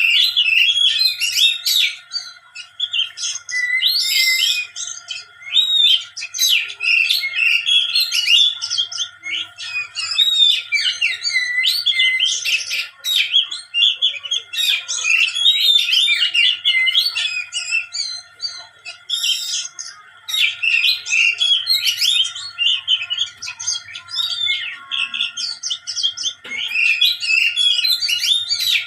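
A songbird singing in bursts of rapid, varied chirps and trills, broken by brief pauses. It is a trigger song meant to provoke rival songbirds into singing their full repertoire.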